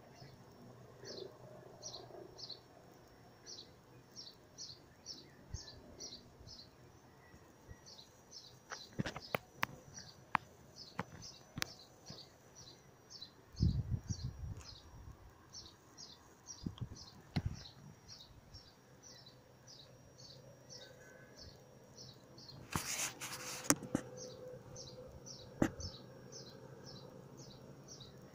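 A small bird chirping in a fast, even series of short high notes, about three a second, over a faint low hum. A few sharp clicks and a thump break in around the middle.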